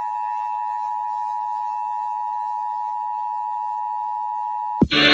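Emergency Alert System two-tone attention signal, a steady dual-tone electronic wail, playing evenly at a reduced level. Just before the end it cuts off with a sharp click and loud music starts.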